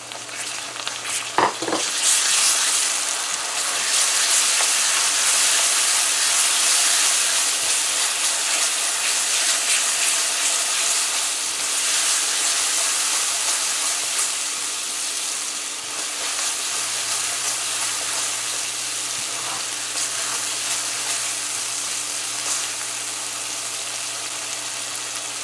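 Watery curry paste hitting hot oil and fried onions in a karahi: a loud sizzle that flares up about two seconds in and slowly dies down. A silicone spatula scrapes the paste out of a bowl and stirs it around the pan.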